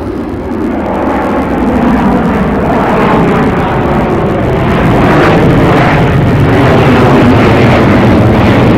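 Low-flying airplane approaching at night, its engine noise a steady rushing sound that grows louder as it nears, with a low hum coming in near the end.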